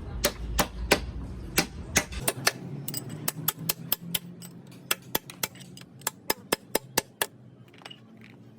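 Hammer tapping on metal gearbox parts: a string of sharp strikes, irregular at first, then a quicker run of about three a second that stops near the end.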